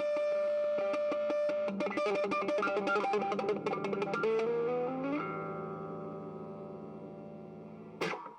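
Guitar music with effects: a held note, then a quick run of notes ending in an upward slide, and a chord left ringing and slowly fading. A short sharp noise comes near the end, and then the sound drops away.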